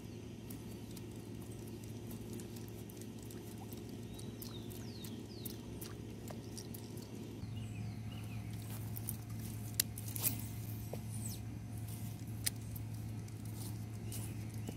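Fishing rod and reel handled during a topwater lure retrieve: soft pattering and scattered clicks, with a few sharp clicks around the middle, over a steady low hum.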